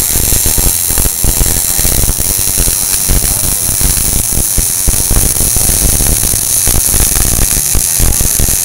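Wire-feed (MIG) welding arc burning steadily as a bead is laid on steel plate: a loud, dense, irregular crackling sizzle.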